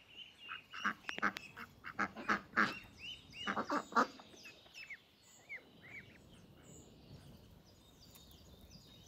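Farmyard fowl calling: a quick run of harsh calls in the first four seconds or so, with a few short, higher chirps among them.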